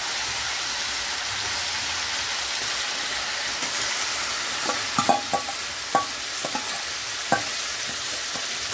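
Marinated chicken sizzling in hot oil and butter in a kadhai, a steady frying hiss. From about halfway, a run of sharp clinks as a spoon scrapes the marinade out of a steel bowl into the pan.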